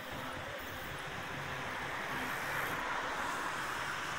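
Steady street noise of a mass of bicycles rolling past on an asphalt city road, over a background of traffic. It swells slightly in the middle.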